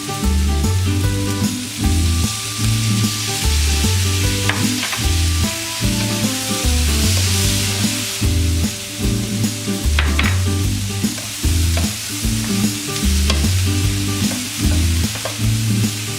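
Food sizzling and being stirred in a frying pan, with a few sharp clicks of a utensil against the pan, about four and a half and ten seconds in. Background music with a repeating bass line plays underneath.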